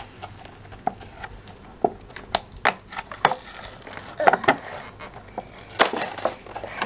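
Toy packaging being opened: scissors snipping at a cardboard-and-plastic toy box and a clear plastic doll box crinkling, giving a scatter of irregular sharp clicks and snaps.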